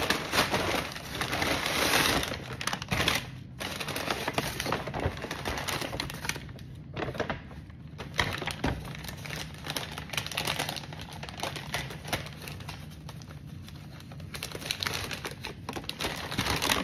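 Brown paper takeout bags rustling and crinkling as they are unfolded and rummaged through by hand: a dense run of crackles with a few brief lulls.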